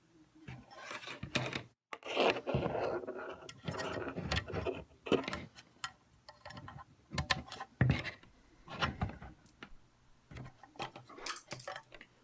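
Handling noises as cables are connected from a turntable's output to a Rane SL2 DJ interface's input: irregular rubbing and scraping with sharp clicks and knocks, the longest stretch of scraping about two seconds in.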